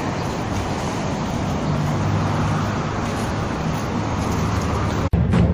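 Street traffic noise with the steady low hum of an idling vehicle engine close by. It cuts off suddenly near the end as music starts.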